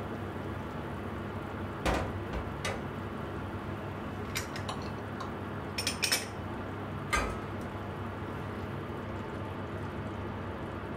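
Pot of beef tendon stew simmering steadily on a gas hob, with a few sharp clinks and knocks as the pot lid is lifted off and set down and a ladle is handled; the loudest clinks come in a quick cluster about six seconds in.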